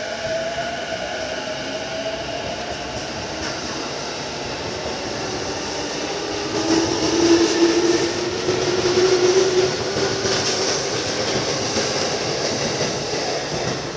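JR Chuo Line E233-series electric commuter train running past the platform, its traction motors whining in several tones that glide slowly and rise in pitch as it gathers speed. It grows louder past the middle, with wheels clacking over the rails.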